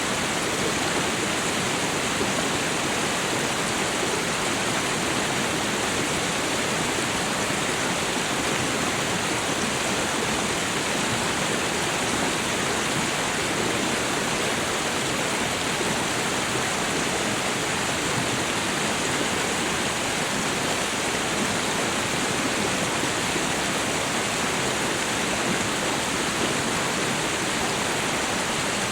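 Waterfall: water falling in a steady, even rush with no change.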